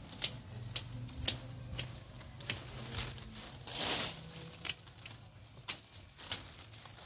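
Pruning shears snipping twigs and leaves off a fig tree: about ten sharp snips at irregular intervals, with a brief rustle of foliage about four seconds in.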